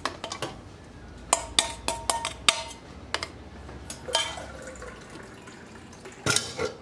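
Beaten eggs pouring from a stainless steel bowl into a plastic food processor bowl. A metal spoon then scrapes the bowl and clinks against it in a quick run of sharp taps with a short ringing tone, with a few more clinks later and a louder pair near the end.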